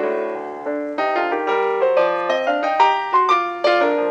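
Solo piano accompaniment: a held chord, then from about a second in a quick run of notes.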